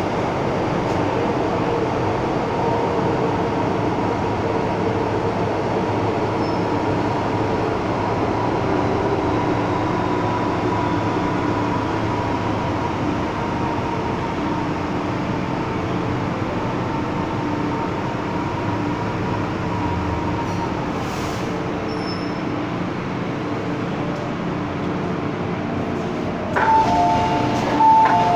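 MTR M-Train running: a steady rumble of wheels and car with a whine, as heard from inside the car. Near the end a short two-tone electronic signal sounds twice.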